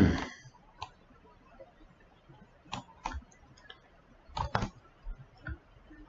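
Computer mouse clicks: a few single clicks and two quick pairs, spaced irregularly.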